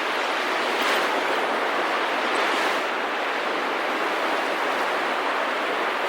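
Ocean surf washing onto a beach: a steady hiss that swells slightly now and then.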